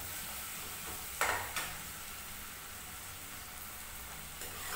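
Chopped vegetables sizzling in a metal saucepan over a gas flame, stirred with a metal ladle that knocks against the pan twice just over a second in.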